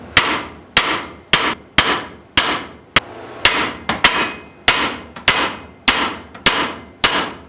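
Steady hammer blows on the steel steering knuckle, about thirteen strikes at roughly two a second, each ringing briefly, to shock the lower ball joint's tapered stud loose from the spindle.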